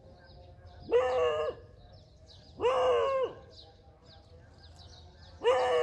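An animal calling loudly three times, each call a steady drawn-out note of about half a second, the first about a second in and the last near the end. Small birds twitter quietly underneath.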